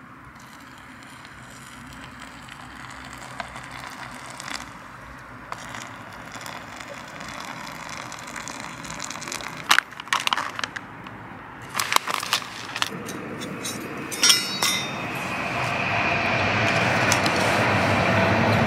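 Small metal clicks and knocks as stove parts are handled, then a rushing hiss that builds over the last few seconds from a small spirit (alcohol) burner's open flame.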